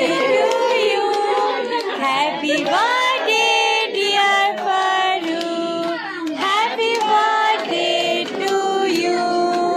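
Several voices singing a melody in held, gliding notes, a birthday song during the cake-cutting.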